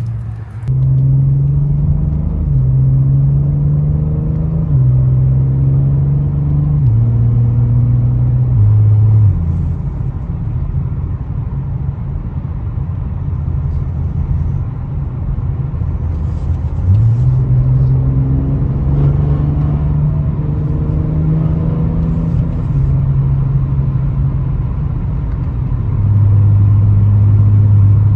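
BMW G80 M3's S58 twin-turbo inline-six through a titanium equal-length X-pipe catback and catless downpipe, exhaust valves open, accelerating through the gears: the engine note climbs and drops back at each upshift, settles into a steadier cruise, then climbs through several more shifts before holding a steady lower drone near the end.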